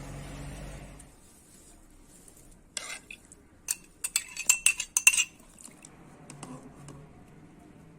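A metal utensil clinking and knocking against cookware, a quick cluster of sharp ringing clinks in the middle. A low steady hum stops about a second in.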